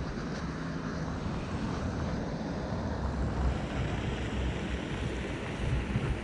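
City street ambience in the rain: an even hiss over a low rumble of traffic.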